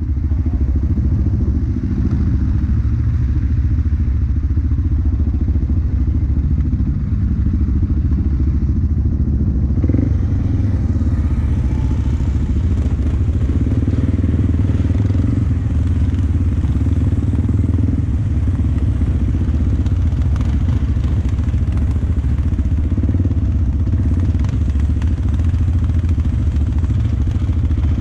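2004 Yamaha Bear Tracker ATV's single-cylinder four-stroke engine, fitted with an FMF exhaust, running steadily, with a few light knocks and clatter now and then.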